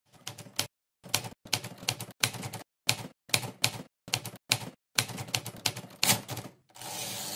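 Manual typewriter keys clacking as letters are typed, in quick clusters of strikes with short pauses between them. Near the end there is about a second of steady rasping noise.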